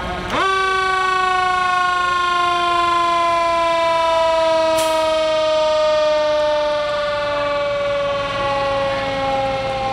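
A fire engine's siren jumps sharply up in pitch about half a second in, then winds slowly down as it coasts.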